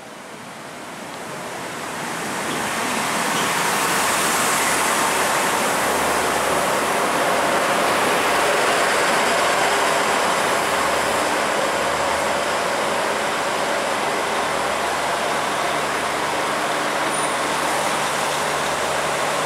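Northern Ireland Railways CAF 3000 Class diesel multiple unit pulling into the platform, the noise of its underfloor diesel engines and wheels on the rails. It grows louder over the first three seconds as the train comes alongside, then holds steady.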